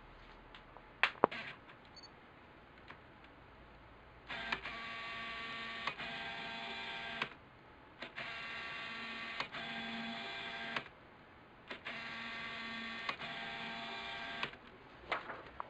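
Older Nikon AF Micro-Nikkor 60mm macro lens autofocusing, driven by the camera body's screw-drive focus motor. Three runs of a whirring, gear-like buzz, each about three seconds long with a click inside, as the barrel racks out and back. A couple of sharp clicks come about a second in.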